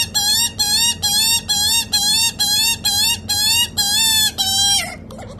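Juvenile Australian magpie begging for food: loud, harsh, insistent calls repeated about three times a second, with one longer call and a brief break near the end.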